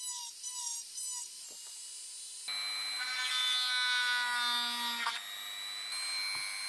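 Small handheld rotary tool whining as its thin bit drills a hole in a plastic battery shell. The pitch wavers at first, then the motor gets louder and steadier about two and a half seconds in, and its tone shifts again near the end.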